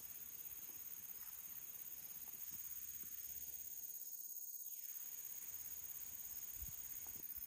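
Faint outdoor ambience: a steady, high-pitched chirring of insects.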